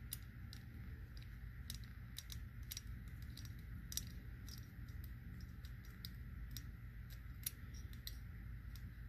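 Small screwdriver driving screws into the metal base brackets of an ICE Tower heatsink cooler: irregular light clicks and ticks of metal on metal, a couple sharper near four and seven and a half seconds in, over a low steady hum.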